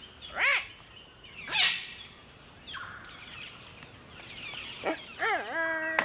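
Palm cockatoo calls: a series of loud whistled and harsh notes, the loudest about a second and a half in, ending in a dipping note that leads into a held whistle near the end.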